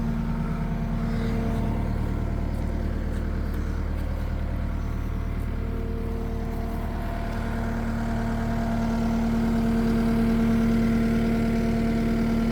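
Cat 259D3 compact track loader's diesel engine idling steadily, a constant low hum with a slightly louder, higher tone coming in over the second half.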